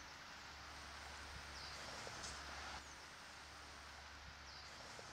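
Faint outdoor ambience: a steady hiss and low hum, with a short high bird call heard twice, about three seconds apart.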